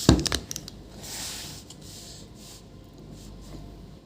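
Close handling noises on a workbench: a knock right at the start, a few sharp clicks and a short rustle, then a low steady background with occasional faint ticks.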